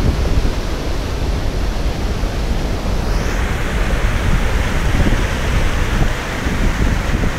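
Kalambo Falls in flood: a high waterfall with heavy, muddy water pouring over a cliff edge. It makes a steady, loud rush that turns brighter and hissier about three seconds in.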